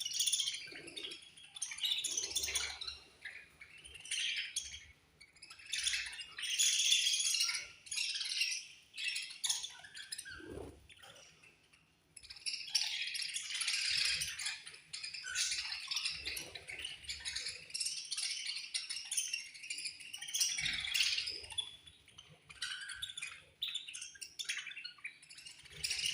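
A flock of budgerigars chirping and chattering, many high calls overlapping in irregular bursts, with a brief lull about eleven seconds in.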